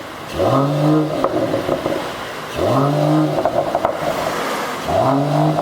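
Mercedes-AMG GLE53's turbocharged inline-six revved three times through a tuned variable exhaust, each blip rising quickly, holding briefly, then dropping off into pops and crackles on the overrun.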